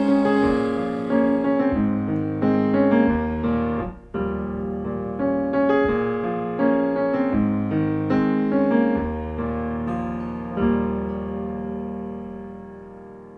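Slow solo piano outro, single notes and chords struck and left to ring. A last chord comes about three quarters of the way through and fades away.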